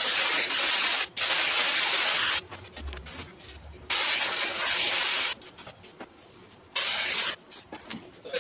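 Sandpaper being rubbed by hand over the bonnet mould's hard surface, making long hissing strokes. Two strokes follow almost back to back at the start, then after short pauses come a longer stroke and a brief one near the end.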